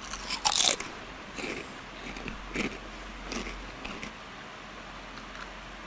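Close-up eating mouth sounds: a loud wet smack as fingers are sucked clean about half a second in, then a few softer chewing sounds over the next few seconds.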